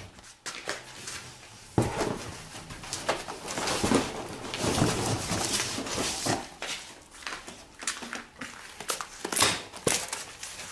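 Rustling and scraping of a bicycle's cardboard box and foam and plastic packaging being handled as the bike is pulled out, with irregular clicks and knocks throughout.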